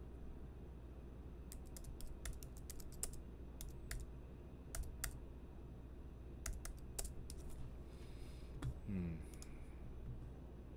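Typing on a computer keyboard: irregular runs of quiet key clicks over a steady low hum.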